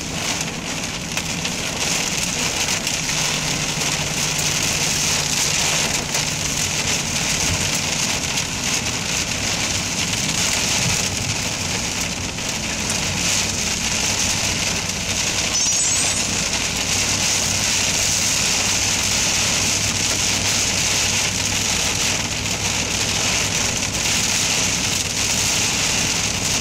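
Heavy rain hitting a moving car's windshield and roof, heard from inside the car as a steady hiss, with the low hum of the engine and tyres underneath.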